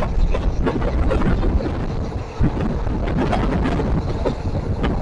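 Moving passenger train: steady rumble and rattling of the wheels on the track, with wind buffeting the microphone.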